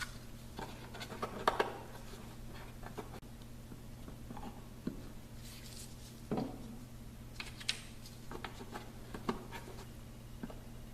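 Scattered light clicks, taps and scratches of small wooden riser pieces being handled and set in place by hand while they are super-glued, over a low steady hum.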